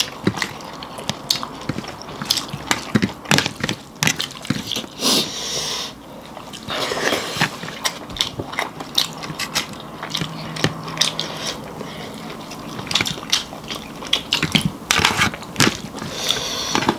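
People eating a rice meal close to the microphone: chewing and crunching, heard as a dense string of short clicks and smacks, with a few longer hissing sounds about five seconds in and near the end.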